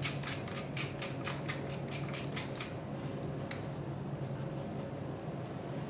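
Hand-twisted pepper mill grinding: quick, crisp clicks about five a second that stop about two and a half seconds in, with one more click about a second later. A steady low hum runs underneath.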